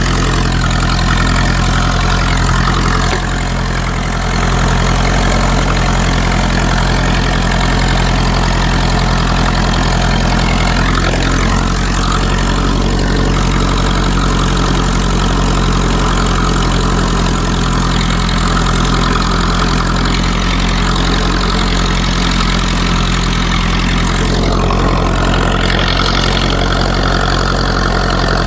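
Ferguson T20 tractor engine running steadily under load while pulling a two-furrow plough.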